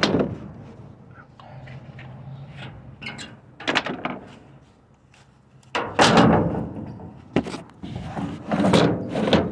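A series of clunks, knocks and rattling handling noises, with a sharp knock right at the start and a denser, louder cluster of clunks in the second half.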